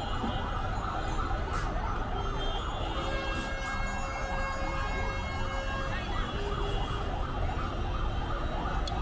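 Busy street noise: many overlapping vehicle horns sounding steady tones of different pitches over a low traffic rumble.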